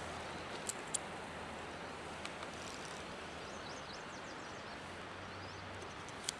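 Steady rushing outdoor background noise with a few sharp faint clicks, and faint high bird chirps midway through.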